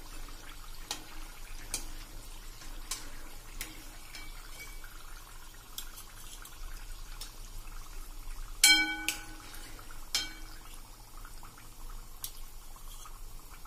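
Steel slotted spoon clinking against a wire-mesh strainer and the frying pan as fried samosas are lifted out of hot oil, over a faint bubbling sizzle of the deep-frying oil. The loudest clink, a little past halfway, rings on briefly.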